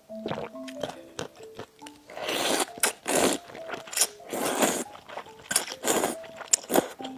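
Close-miked eating: a series of loud crunching bites and chews, starting about two seconds in, over soft background music with a simple melody.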